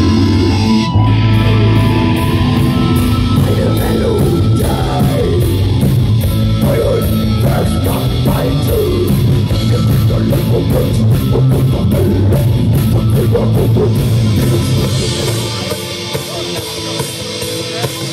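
Live dark metal band playing: distorted guitars over fast, even drumming. The music gets quieter near the end.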